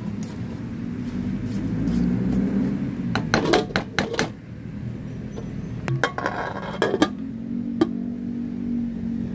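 A spatula clinks and scrapes against a pan of sautéing spinach in two bursts of knocks, then a pot lid clatters as it is put on. A steady low hum runs underneath.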